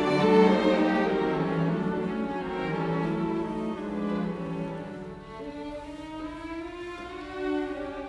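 Background music of bowed strings, violin and cello, playing slow sustained notes that grow softer about halfway through.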